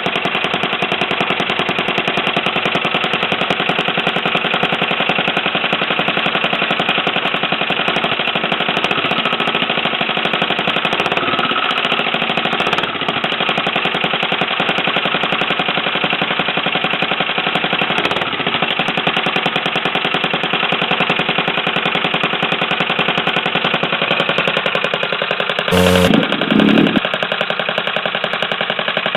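Small pocket or pit bike engine running steadily with a rapid, even firing beat. Near the end there is a short, louder change, with a couple of blips.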